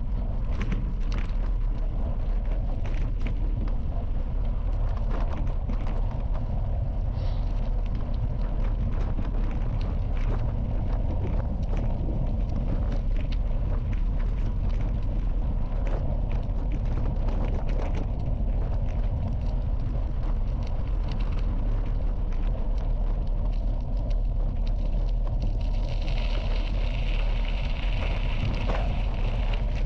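Bicycle riding on a gravel path: a steady low rumble of tyres and wind on the microphone, with frequent small rattles and knocks from the bike over the gravel. A higher hiss joins about 26 seconds in.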